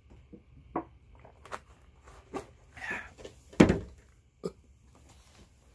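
A person gulping a drink from a plastic bottle: a run of short swallowing sounds about once a second, with one louder thud about three and a half seconds in.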